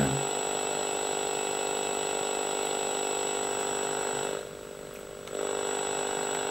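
Sony Watchman FD-30A pocket TV's speaker turned up, giving only steady noise with a buzz and a thin high whistle. No programme sound comes through because the US-standard set's sound carrier does not match the local broadcast. The noise drops for about a second a little past the middle, then comes back.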